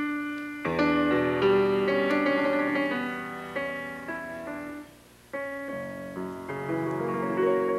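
Piano music: struck notes and chords that ring and fade, with a short pause about five seconds in before the next chord.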